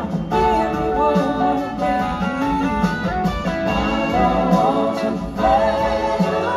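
Live blues-rock band playing at full volume, with an electric guitar line that bends and glides in pitch over drums, bass and keyboards.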